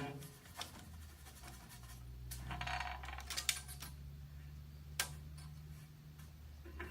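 A few light, sharp clicks and taps from tools or pieces being handled on a workbench, over a low steady hum; a small cluster of them comes a little before the middle.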